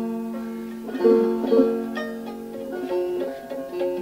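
Banjo picked slowly, single notes and double stops struck about every half second and left to ring.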